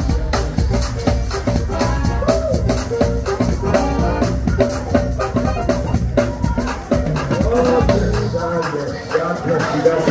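Gospel youth choir singing with a live band, drums and shaker-like percussion keeping a steady beat under the voices.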